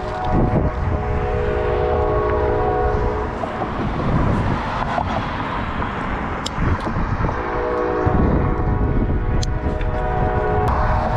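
A horn sounds two long blasts of about three seconds each, the second about eight seconds in, over a steady low rumble.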